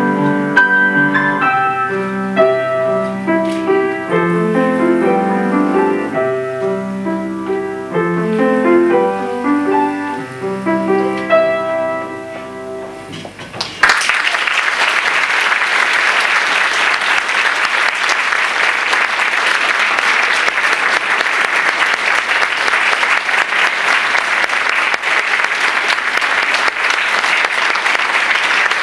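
Classical piece played on a grand piano, growing quieter toward its close, then about halfway through an abrupt change to steady applause from an audience.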